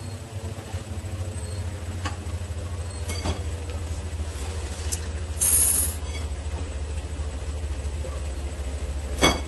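Steady low hum, with faint clicks about two and three seconds in, a brief hiss about five and a half seconds in, and two sharp clicks near the end.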